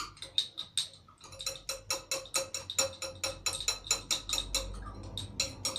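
A spoon clinking rapidly against the side of a bowl while stirring a slime mixture of glue, glitter and borax water, about six clicks a second with brief pauses.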